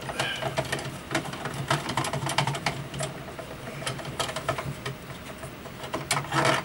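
Anet A8 3D printer's Z-axis threaded rod being spun by hand to thread it out of its nut in the X-axis carriage: a run of quick, irregular metal clicks and rattles, with a louder cluster near the end.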